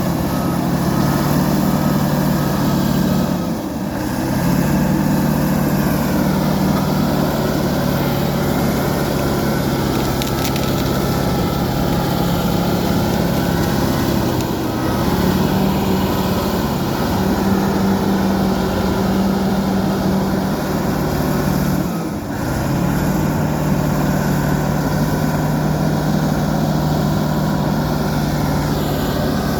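Fiat-Kobelco FD300 bulldozer's diesel engine running loudly and steadily under work. The engine note dips briefly twice, about a few seconds in and again past the middle, and rises in pitch for a stretch midway.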